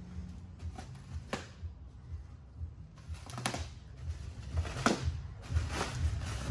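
Bike packaging being handled and pulled off: a string of short rustles and scrapes, about five, a second or so apart.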